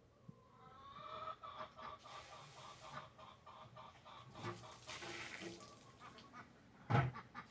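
Chickens clucking in a run of short, repeated notes, with a loud thump near the end.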